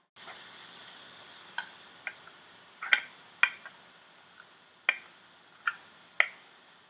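Thin clear plastic dessert moulds clicking and crackling sharply as they are handled and set on the counter, several irregular clicks over a steady hiss.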